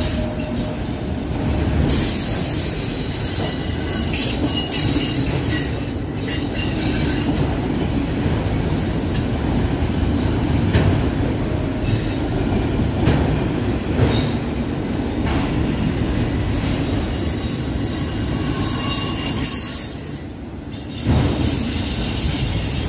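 Empty autorack freight cars rolling past on a slowing freight train: a steady rumble of steel wheels on rail, with thin high wheel squeals and scattered knocks from the cars. The rumble eases briefly near the end.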